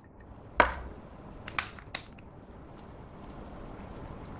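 Lipstick in its plastic case being handled: a sharp click about half a second in, then two lighter clicks about a second later and a few faint ticks, over a low steady hiss.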